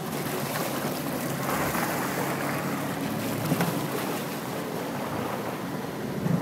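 Water sloshing and wind noise on a microphone held at the sea surface, with the low steady hum of an ECI Yachts carbon power catamaran's twin MAN V12 engines as it moves slowly past nearby.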